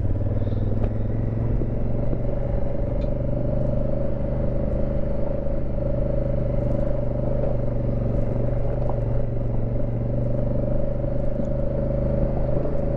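2019 Honda Africa Twin CRF1000L's parallel-twin engine running at a steady speed on a dirt trail, with a few faint clicks.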